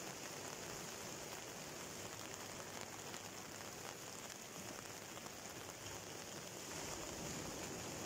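Surf breaking and washing over a rocky shore: a steady hiss of foam and wash that swells slightly about seven seconds in as a wave comes in.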